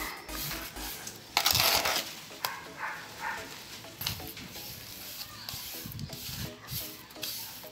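Small trowel scraping and smoothing wet sand-and-cement mortar spread on cardboard, in irregular strokes; the loudest stroke is a rasping scrape about a second and a half in.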